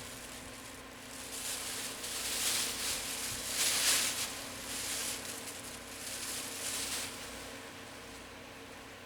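Small 9-inch electric box fan running on low with a steady hum, its poorly oiled bearings audible, which the owner says are not oiled well. Over it comes paper rustling in several swelling surges through the middle of the sound.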